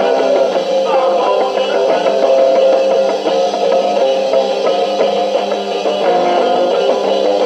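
Rock band playing live, electric guitar and drum kit, with no singing.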